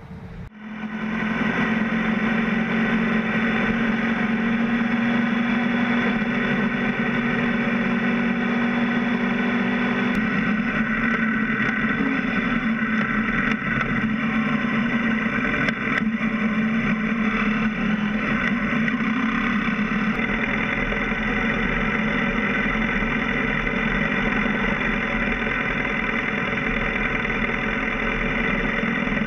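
BMW F650 GS motorcycle engine running while riding, with road and wind noise, picked up by a camera mounted low beside the front wheel. It comes in suddenly about half a second in, then holds steady, shifting a little in pitch about ten seconds in.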